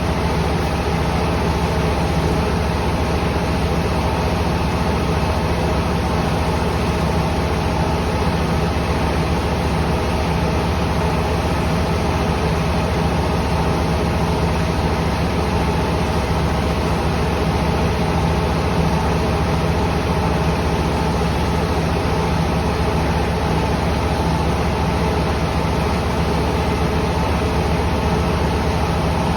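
Rice mill machinery running with a steady, unchanging drone and hum.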